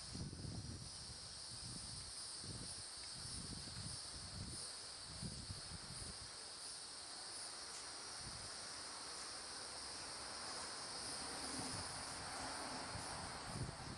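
Steady high-pitched insect chorus, crickets or cicadas chirring without pause, with irregular low rumbles of wind on the microphone.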